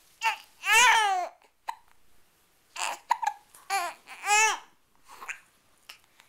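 A 7-week-old baby cooing: a string of short high-pitched vocal sounds that bend up and down in pitch, the two longest and loudest about a second in and about four seconds in.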